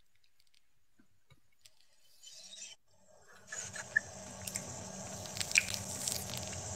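Near silence, then from about three and a half seconds in a steady rubbing, scraping noise with scattered sharp clicks.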